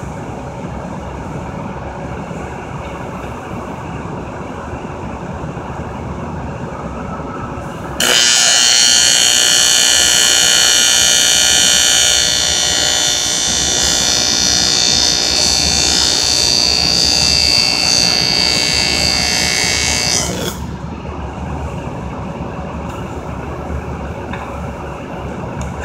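Steady background noise, then about eight seconds in a TIG welding arc strikes and buzzes loudly and steadily for about twelve seconds, made of many steady tones, before cutting off suddenly.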